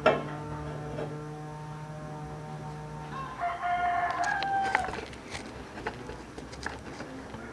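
A metal cooking pot is knocked once and rings for a few seconds. About three seconds in, a rooster crows once, followed by a few light clicks.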